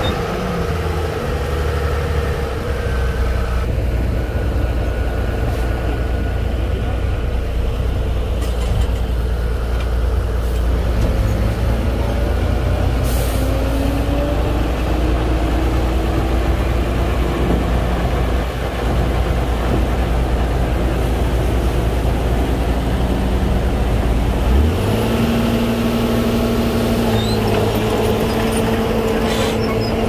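Heavy diesel engine of earthmoving machinery running steadily under work, its note shifting in pitch several times and stepping up about 25 seconds in, with a brief hiss about 13 seconds in.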